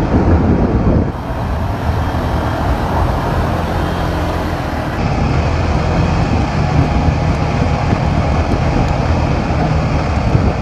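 ATV engine running steadily as the machine rides along a dirt trail, with a continuous low rumble and rough road noise; it eases slightly about a second in.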